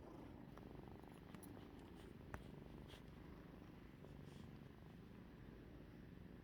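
A cat purring steadily and faintly, with one small click about two seconds in.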